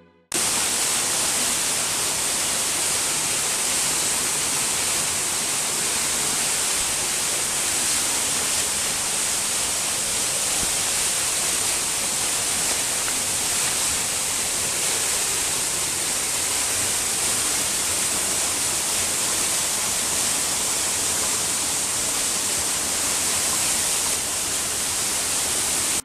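Steady rush of a waterfall pouring into a rocky plunge pool: a constant, even hiss of falling water that starts abruptly just after the beginning and cuts off suddenly at the end.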